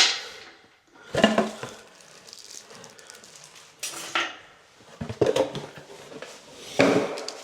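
Metal faucet and plumbing parts clinking and clattering as they are handled and set down, about five separate clatters with a brief ring after each.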